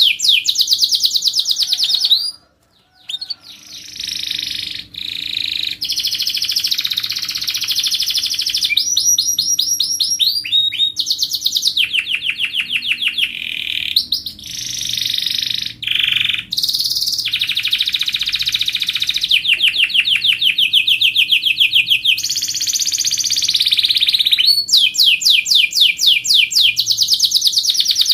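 Canary singing a long, continuous song of rapid trills: each phrase is a fast run of repeated notes, and one trill follows another with changes in pitch and speed. The song breaks off briefly about two and a half seconds in.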